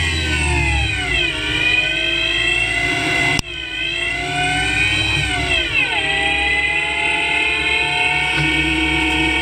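CNC lathe spindle motor whining while turning a chess piece, its pitch sliding down and back up several times as the spindle speed changes. There is a sudden break just over three seconds in.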